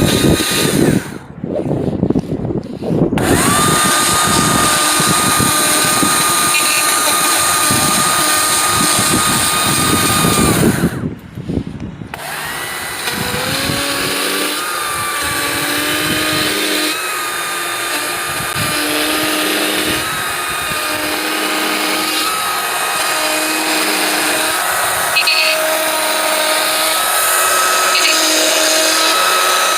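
A power carving tool working wood, running hard with a rough, noisy sound and briefly cutting out twice. In the second half it settles into a steadier whine that rises and falls every second or two.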